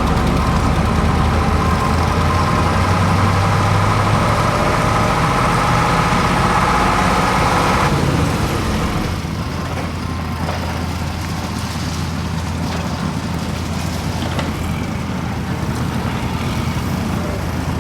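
Off-road 4x4's engine running under load with a slowly rising whine. About eight seconds in the whine stops and the engine runs on more quietly.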